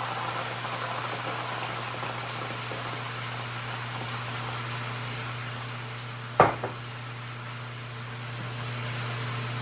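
White wine hissing and simmering as it is poured into a hot nonstick pan of shallot and garlic, over a steady low hum. A single sharp knock, the loudest sound, comes about six and a half seconds in, with a smaller tap just after.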